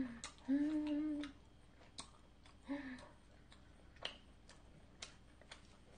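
A woman humming short, closed-mouth "mm" sounds of enjoyment while chewing, the longest lasting about a second. A few faint sharp clicks come in between.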